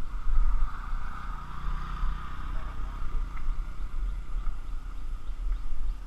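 Kawasaki Versys 650 parallel-twin engine running at low revs, a steady low rumble with wind buffeting the helmet-mounted camera's microphone.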